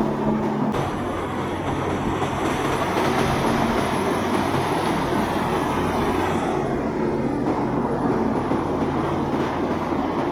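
Boat engines running steadily through the inlet, a continuous drone mixed with the rush of wind and water; a faint high whine fades out about two-thirds of the way through.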